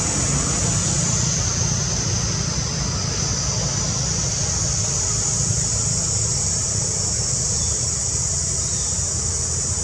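Steady tropical forest ambience: a constant high-pitched insect drone over a low, even rumble.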